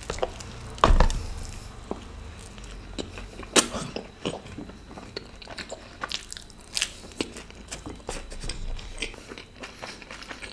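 Close-miked eating: a loud crunching bite into crispy food about a second in, then chewing with sharp crackling crunches scattered through.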